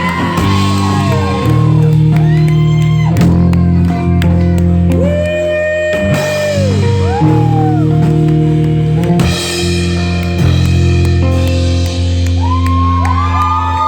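Live rock band playing the closing part of a song: drums and electric guitar over steady low chords, with long held lead notes that slide up into pitch and fall away.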